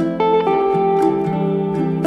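Background music: a melody of plucked string notes over sustained chords.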